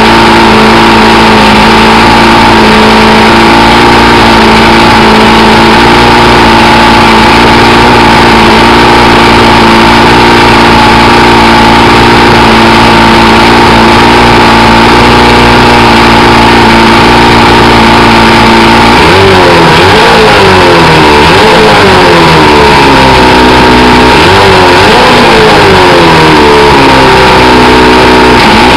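Johnson 140 hp V4 two-stroke outboard running loud out of the water on a garden-hose flush, holding a steady idle. About two-thirds of the way through it starts being revved up and down, one blip every second or two.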